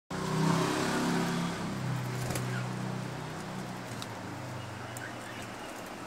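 A low engine-like hum, loudest at the start and fading away over about five seconds. A few faint budgerigar chirps and sharp beak clicks are heard over it.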